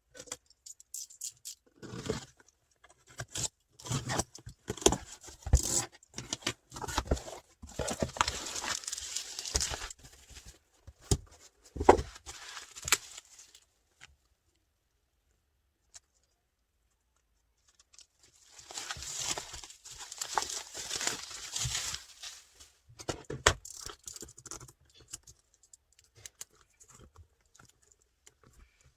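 Hands handling and opening a boxed merchandise package: packaging rustling and tearing, with scattered taps and knocks of the box and its contents, and a pause of a few seconds in the middle.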